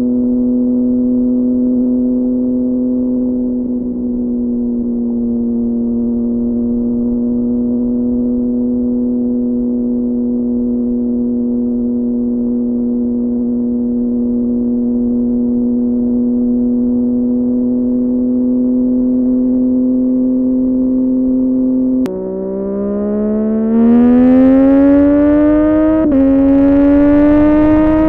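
Sport motorcycle engine holding a steady, muffled drone at constant speed for about twenty seconds. Then the sound changes abruptly: the pitch drops and climbs as the bike accelerates, with two upshifts near the end.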